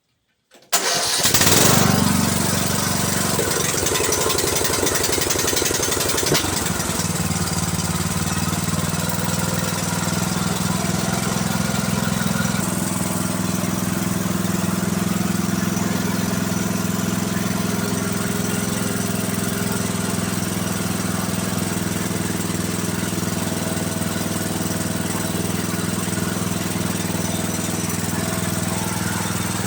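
Small engine on a Craftsman mower, fitted with a replacement carburetor, starts about a second in. It runs unevenly for the first few seconds, then settles into a steady run: the engine is now getting fuel through the new carburetor.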